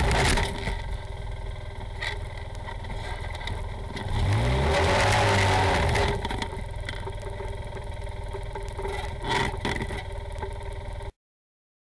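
Polaris RZR side-by-side's engine heard from inside the cab: it drops off the throttle right after the start, revs up with a rising pitch for about two seconds near the middle, then runs lower again with a short clatter a little before the end. The sound cuts off abruptly just before the end.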